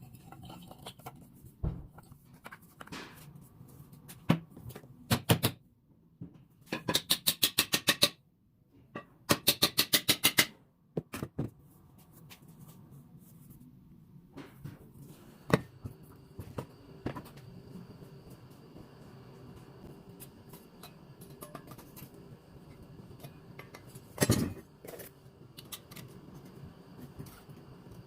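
Workshop knocking and clinking during metal repair work: scattered single knocks, with two quick runs of rapid, even tapping, each lasting about a second and a half. A faint steady hum comes in about halfway through.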